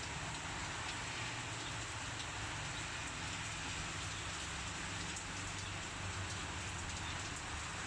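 Heavy rain falling steadily, a constant wash of drops on surfaces with faint scattered ticks.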